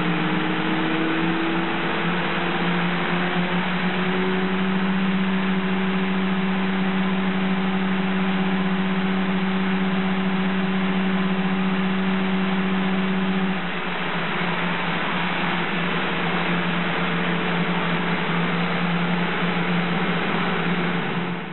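1987 Mini's 998cc A-series four-cylinder engine, with modified cylinder head, running hard on a rolling road dyno. Its pitch rises over the first few seconds and then holds steady. About 14 seconds in it drops a little in pitch and gets somewhat quieter, then runs on steadily.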